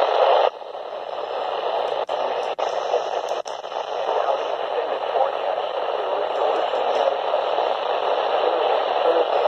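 Midland weather radio's speaker hissing with static while tuned to 162.500 MHz, a weak, barely received NOAA Weather Radio signal. Three short clicks come between two and three and a half seconds in.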